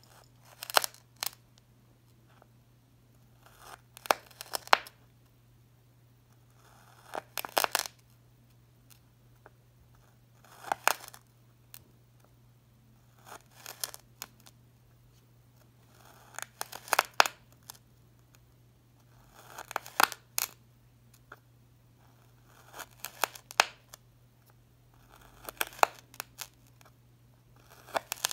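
Knife blade slicing through moulded coloured sand, one short crunchy cut about every three seconds, about ten cuts in all.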